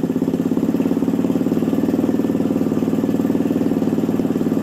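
Suzuki Thunder 125 single-cylinder four-stroke engine, bored up with a 62 mm Satria FU piston, running steadily with an even, rapid pulse.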